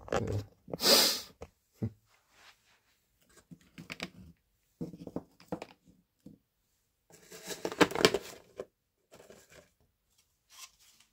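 Thin plastic deli-cup lid being pried off and handled, a run of crinkling crackles and clicks, loudest about eight seconds in, with scattered rustles and a short rushing noise about a second in.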